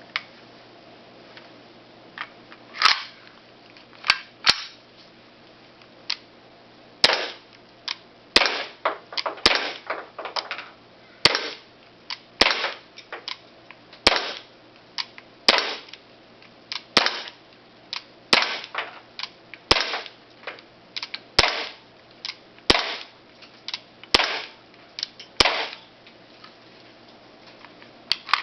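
Tactical Force blowback Glock 17 airsoft pistol firing single shots, each a sharp snap of the slide cycling. The shots are irregular, about one every second or two, some coming in quick pairs.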